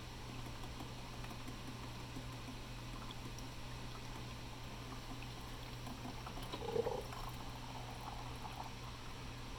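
Black & Decker Spacemaker drip coffee maker brewing, with faint bubbling and gurgling of hot water over a steady low hum. There is one brief, louder sound about seven seconds in.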